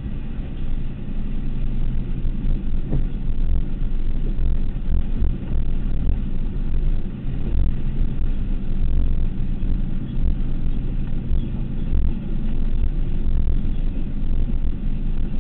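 Truck engine running steadily with a low rumble from the drive over a dirt track, heard from inside the cab.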